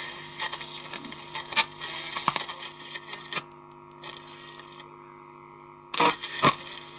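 Scattered clicks and knocks over a steady electrical hum and hiss, quieter for a few seconds in the middle, with two loud knocks near the end: a record player being handled.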